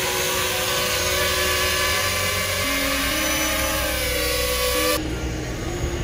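FPV racing quad's brushless motors whining under throttle, the whine rising and falling in pitch. It cuts off abruptly about five seconds in, leaving a lower rumble.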